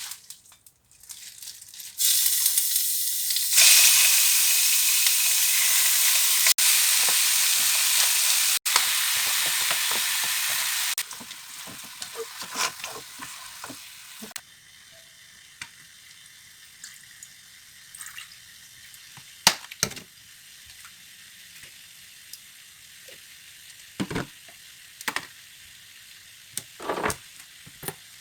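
Food frying in a hot pan: a loud sizzle starts suddenly about two seconds in, grows louder a moment later and cuts off abruptly after about nine seconds. A much fainter sizzle follows, with a few short taps and clinks of a utensil against the pan.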